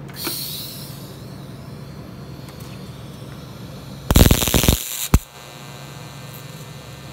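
TIG welder repairing the cracked thermostat-housing mount on a cast-iron cylinder head with silicon bronze rod: a steady electrical hum, broken about four seconds in by a loud crackling burst lasting under a second, then a sharp click.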